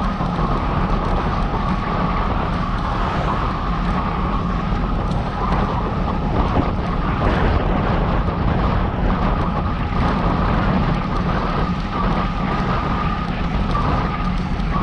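Steady wind rushing over the microphone of a camera carried on a moving bicycle, mixed with road noise.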